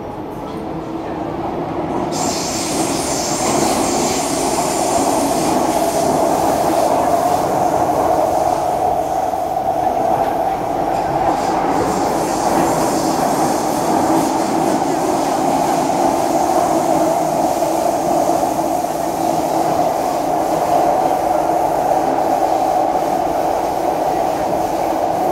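Metro train running, heard from inside the carriage: a steady whine over a constant rumble, growing louder over the first few seconds, with a higher hiss coming in about two seconds in.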